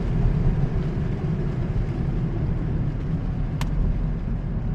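Toyota Corolla driving on a wet road in the rain, heard from inside the cabin: a steady low rumble of engine and tyre noise with a hiss from the wet road, and a single sharp click about three and a half seconds in.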